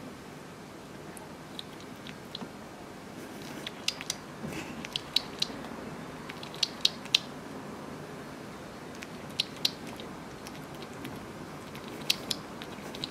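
Hedgehog nibbling a piece of croissant: sharp, crisp crunches in short clusters, with pauses between them.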